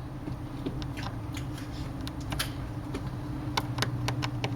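Scattered light clicks and taps from hands and a small tool working on the internal parts and connectors of a Kindle Fire HDX tablet during disassembly, over a steady low hum.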